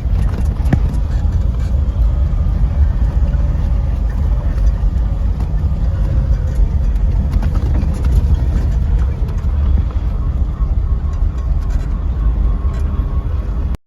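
A motor vehicle driving, a steady low rumble with scattered small knocks and rattles, ending abruptly.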